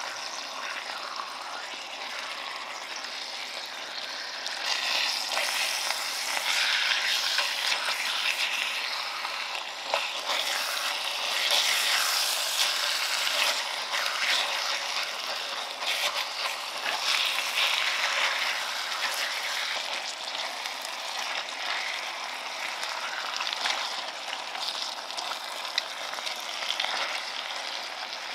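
Pork neck steaks and chopped onions sizzling in a hot enamelled pan as they are turned over with tongs. The sizzle grows louder a few seconds in and eases again in the second half, with a few sharp clicks of the tongs against the pan.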